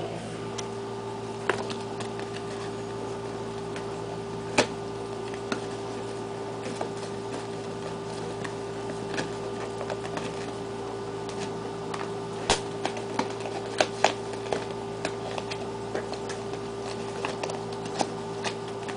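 Scattered clicks and taps of an SSD's retail box and packaging being handled and opened, irregular and a few seconds apart, over a steady electrical hum.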